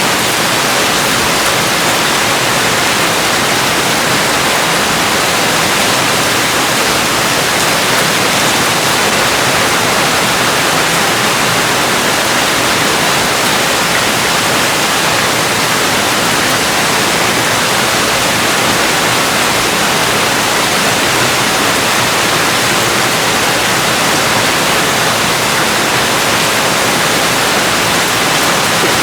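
Heavy rain falling as a steady, even hiss, with no single drops or thunder standing out.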